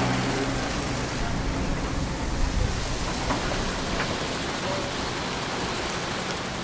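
Road traffic on a wet road: a large truck's engine hums close by and fades out about a second in, leaving a steady hiss of slow-moving traffic.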